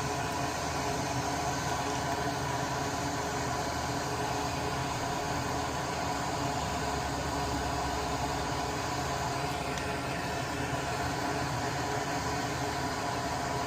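Solder fume extractor fan running steadily, an even whirring hum with faint steady tones.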